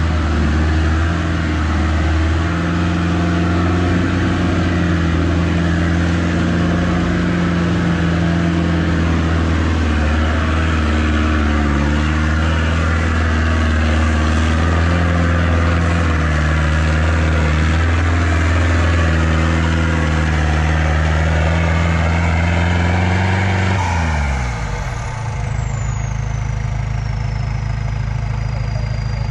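A 4x4 off-road vehicle's engine running steadily under load on a steep climb. About four-fifths of the way through its pitch drops away sharply, leaving a lower, steadier hum, while a thin high whine glides down and then holds.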